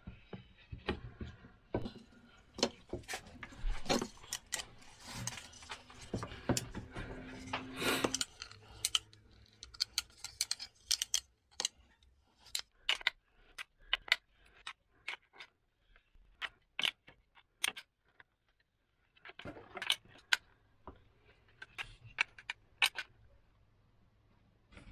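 Small wooden parts and metal hardware (a bolt, washers, a nut) clicking, knocking and clinking as they are handled, fitted together and set down on a workbench. The clicks come thick and fast at first, then thin out, and after a short pause a last cluster comes near the end.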